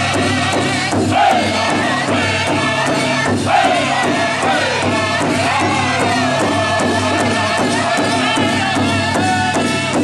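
Powwow drum group singing loudly and high-pitched together over a steady beat, several drummers striking one large hide drum in unison. The singing swells louder about a second in and again about three and a half seconds in.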